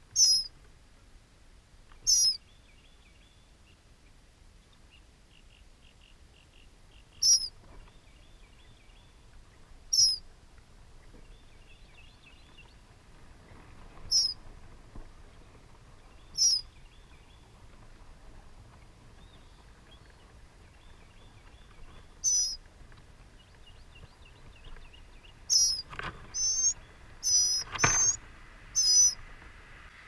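Short, high bird calls repeated every few seconds, then coming in a quick run of five or six near the end. A fainter rapid trilling sounds between them.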